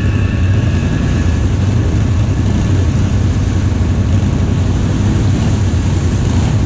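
ATV engine running steadily at low speed, a continuous low drone, with a faint high whine that fades out in the first second or two.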